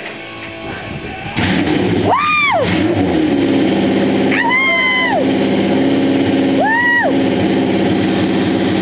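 Honda CB750 inline four-cylinder motorcycle engine firing up on its first start after a chopper build: it catches about a second and a half in and keeps running. It is revved three times with throttle blips, each rising and falling in pitch, and settles to a steady idle in between.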